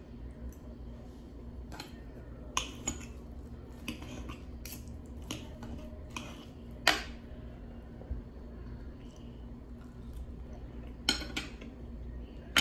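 Metal knife and fork clinking and scraping on a china plate while cutting French toast: a scatter of sharp clinks, the loudest about seven seconds in. A steady low hum runs underneath.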